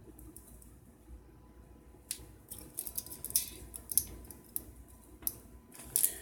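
Faint irregular clicks and light rustling of small pliers and thin 30-gauge Kanthal wire being handled, starting about two seconds in.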